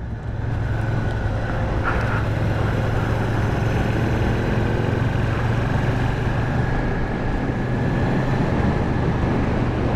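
Motorcycle engine running at a steady cruise under wind and road noise, getting louder over the first second or so and then holding an even drone.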